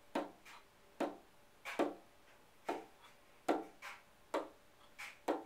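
A Muscovy duck knocking on a door, a sharp knock about every second with some coming in quick pairs, each one ringing briefly. The duck is knocking to be let in.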